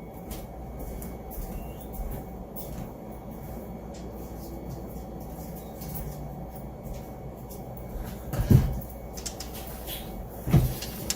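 Plastic robot-vacuum parts being handled on a work surface, with faint scattered clicks over a steady low hum and two louder knocks near the end.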